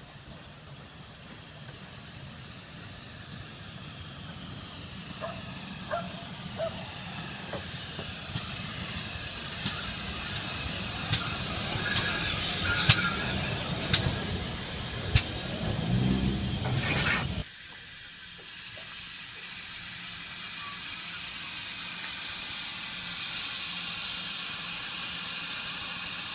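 Steam locomotive, GWR 4-6-0 No. 6960 Raveningham Hall, drawing its train into the platform. The sound grows steadily louder with several sharp clicks, then cuts off suddenly about 17 seconds in. After that comes a steady hiss of steam from the engine standing alongside.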